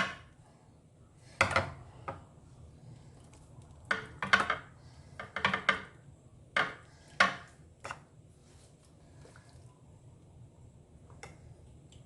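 A spoon tapping and scraping against a dish while sauce is spooned over a fish: about a dozen short, sharp clinks at irregular intervals, with quiet gaps between them.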